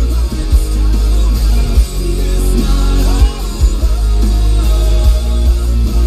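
A song with vocals played loudly through a car stereo inside the cabin, with heavy bass from a Rockford Fosgate T1S1-12 subwoofer.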